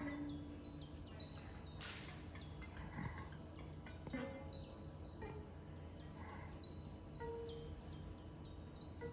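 Recorded nature soundscape of many small birds chirping continuously in short, high, downward-sweeping notes, over a faint low hum.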